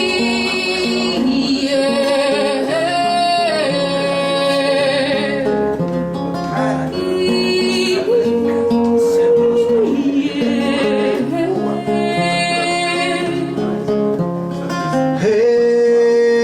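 Live acoustic music: guitar playing chords under a melody of long held notes, each a second or two, with a wavering vibrato.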